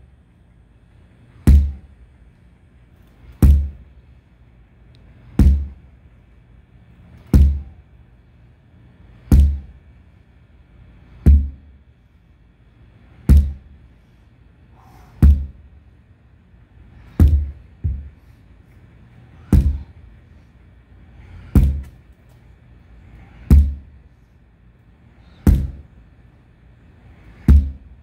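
Sledgehammer striking a large tractor tire: a dull thud about every two seconds, fourteen or so in all, with one lighter extra knock in the middle.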